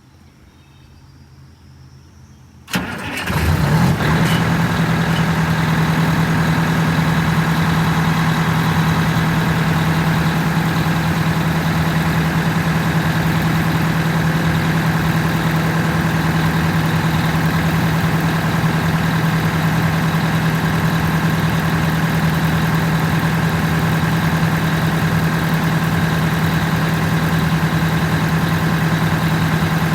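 Detroit Diesel 8V92TA two-stroke V8 diesel starting about three seconds in, catching within a second, then idling steadily.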